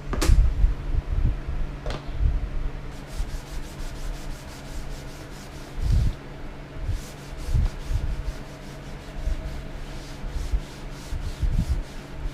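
Rhythmic hand rubbing strokes, about four or five a second, beginning about three seconds in and coming in runs, over scattered low knocks and a steady low hum.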